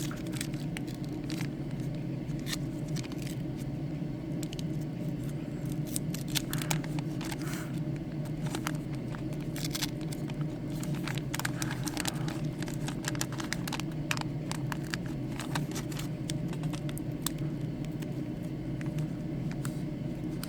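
Waxed-paper card-pack wrapper being peeled and torn open, crinkling with many short crackles; the wrapper's seal is glued on firmly. A steady low hum runs underneath.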